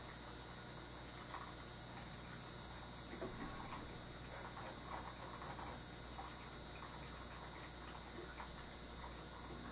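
Quiet room tone: a steady low hum and hiss, with faint, irregular short ticks and taps.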